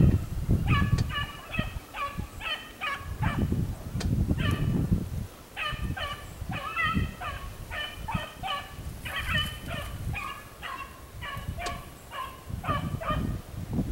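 A beagle baying as it runs a rabbit's track alone: a steady string of short, high yelps, two or three a second, the sign that the hound is on the scent. A low rumble of noise on the microphone rises about four seconds in.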